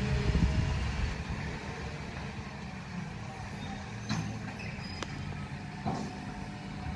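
Garbage truck's diesel engine running as the truck pulls away, loudest in the first second and then settling to a lower rumble, with a few brief sharp sounds about four and six seconds in.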